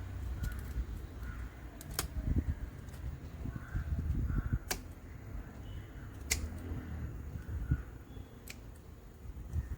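Pruning scissors snipping bougainvillea stems: four sharp snips a second or two apart, with leaves and stems rustling in between.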